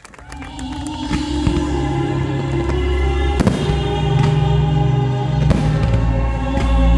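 Loud music with a heavy bass swells in over a fireworks display within the first second. Several firework shells burst with sharp bangs over it, the biggest about three and a half and five and a half seconds in.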